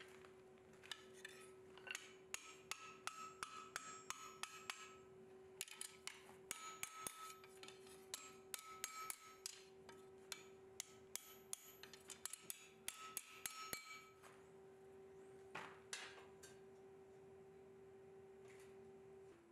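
Hammer blows on a red-hot steel bar being bent into a ring at the anvil, struck rapidly at about two to three a second, each with a light metallic ring. The strikes stop about 14 seconds in, with two more a couple of seconds later, over a faint steady hum.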